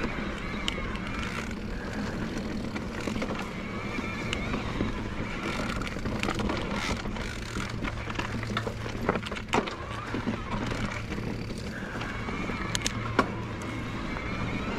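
Bosch CX mid-drive motor of an e-mountain bike whining under pedal assist on a climb, its pitch wavering. Scattered sharp clicks and knocks from the bike going over the trail, one louder knock near the end.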